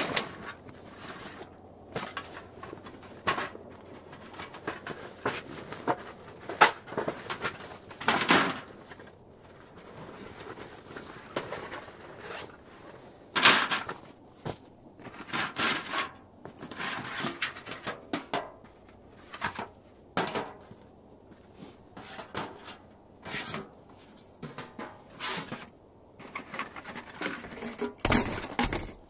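Thin sheet-metal stove panels and stovepipe sections being handled and pulled out of a fabric carry bag. The bag rustles, and the metal gives off irregular knocks and clatters.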